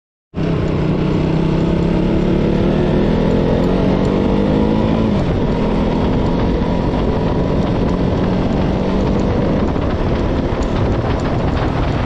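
KTM Duke 200's single-cylinder engine running while the motorcycle rides along, its revs dropping briefly about five seconds in.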